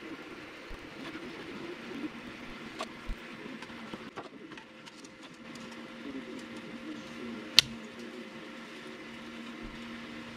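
Prusa Mini 3D printer printing: its stepper motors whine in shifting tones as the print head moves back and forth, over a steady hiss. One sharp click about three-quarters of the way through.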